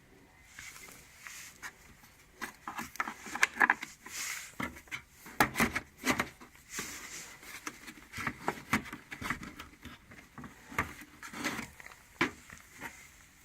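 Hands unpacking and handling items from a tool case: irregular light knocks, taps and clicks with some rustling in between.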